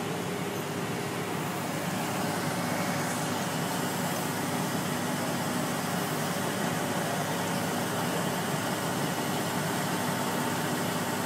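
Steady drone of idling fire apparatus engines, a constant hum with a few faint held tones and no sudden sounds.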